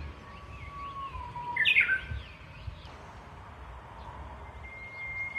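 Japanese bush warbler singing its 'hoo-hokekyo' song: a long steady whistle that slides slightly down, then a loud quick flourish about two seconds in. Near the end a second song begins with a long, higher whistle.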